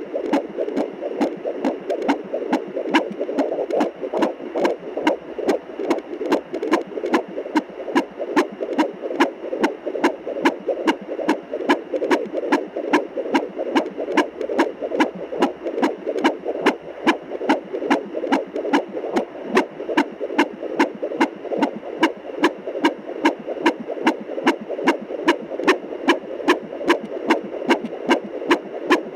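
Fetal heartbeat at 24 weeks of pregnancy, picked up by a handheld fetal Doppler: a fast, even pulse of beats, a little over two a second, over a steady hum.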